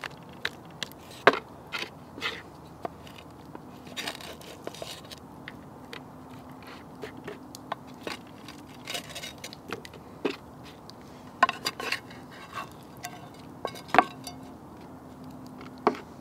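Serving utensils scraping and knocking against wooden plates as mashed potato and sausages are dished up: scattered short clicks and knocks, the sharpest about a second in and again near the end.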